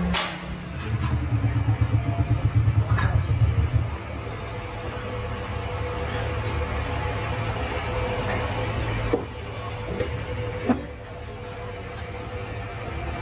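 Low mechanical rumble, pulsing for the first few seconds and then settling into a steady hum, with a few sharp knocks near the end.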